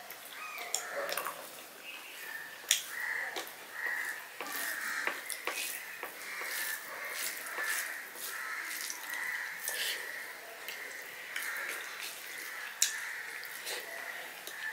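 Hand mixing cooked rice and leafy greens on a steel plate: soft wet squishing with many sharp clicks of fingers on the metal plate, two louder than the rest, about three seconds in and near the end. A steady high-pitched whine runs underneath.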